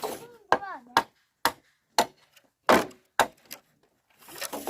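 A tool striking wood about six times, roughly two blows a second, then stopping.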